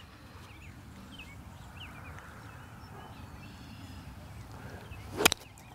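A golf iron striking the ball heavy, catching the turf just behind it, heard as one sharp impact about five seconds in. Before it there is a low outdoor background with faint bird chirps.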